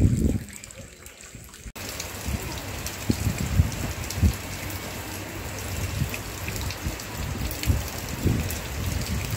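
Monsoon rain falling steadily, an even hiss that grows fuller about two seconds in, with irregular low gusts of wind rumbling on the microphone.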